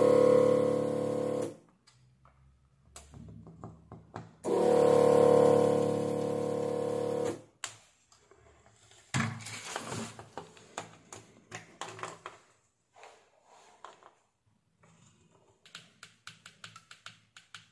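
Handheld electric desoldering gun's vacuum pump buzzing in two spells, briefly at the start and again for about three seconds from about four seconds in, sucking solder off the capacitor leads of a switch-mode power-supply board. Light clicks and taps follow as the capacitor is handled and multimeter buttons are pressed.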